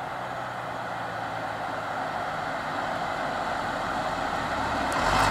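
Steady rush of road traffic, growing slowly louder toward the end.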